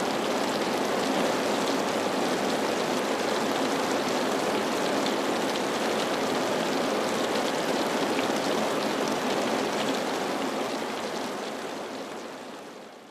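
Steady rain falling, a dense even hiss with scattered faint drop ticks, fading out over the last few seconds.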